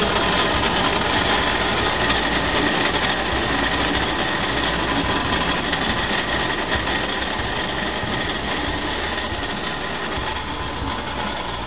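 Bench grinder spinning a Scotch-Brite wheel with a steady whirring hiss, while the edges of an aluminium piston are held against it to deburr them. The sound slowly gets quieter.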